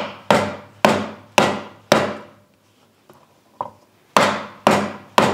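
Wooden meat mallet pounding lemongrass stalks on a wooden cutting board to bruise them. There are about five sharp blows, roughly two a second, then a pause of nearly two seconds with one light tap, then three more blows.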